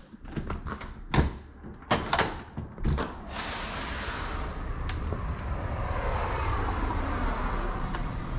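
A few sharp knocks and clunks, like a sliding door being handled and opened, then from about three seconds in a steady rushing outdoor noise that grows slightly louder.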